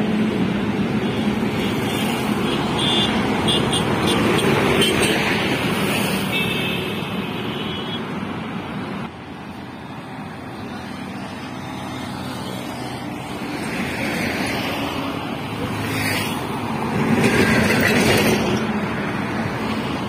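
Highway traffic passing close by: motorcycles, trucks and cars, their engine and tyre noise swelling and fading as each goes by. The loudest pass comes near the end, as a heavy vehicle such as a bus goes past.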